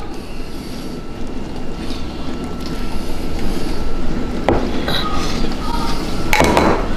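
Steady rumbling kitchen noise that grows a little louder, with a light knock about four and a half seconds in and a louder clatter near the end.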